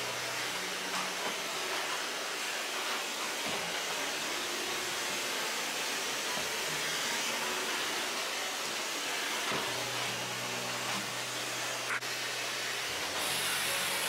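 Vacuum cleaner running steadily, an even airy whoosh throughout.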